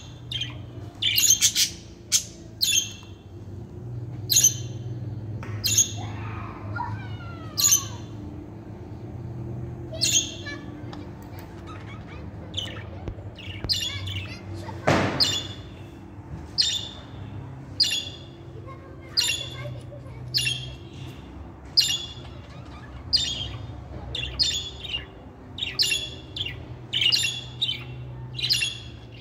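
Budgerigars chirping: short, sharp, high chirps about once a second, with a falling warble about six seconds in. A single knock comes about halfway through, over a steady low hum.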